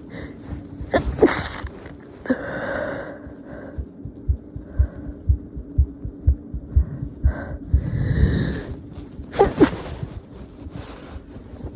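Two stifled sneezes, about a second in and again near the end, each a short sharp squeak. Breathy inhales come before them. Between the sneezes, a heartbeat sounds as regular low thumps about twice a second, picked up through a phone lying on the chest.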